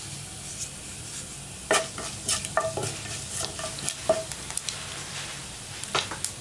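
Cumin and fennel seeds sizzling in hot oil in a nonstick pan. From about two seconds in, a wooden spatula scrapes and knocks against the pan in a string of sharp strokes as the seeds are stirred.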